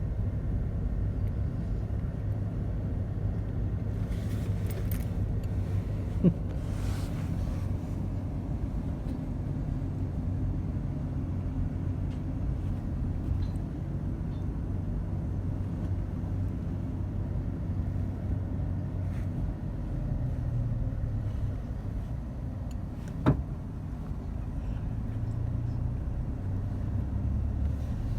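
Motor vehicle running with a steady low rumble, with two sharp clicks, one about six seconds in and another near the end.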